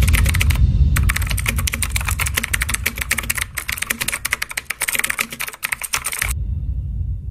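Rapid computer-keyboard typing sound effect, a dense run of clicks over a low rumble, cutting off abruptly about six seconds in.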